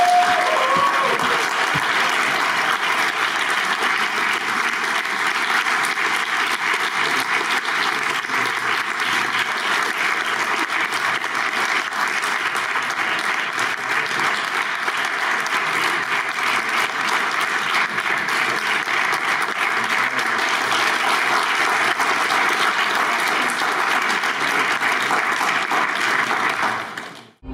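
Audience applauding, long, even clapping at a steady level that cuts off just before the end.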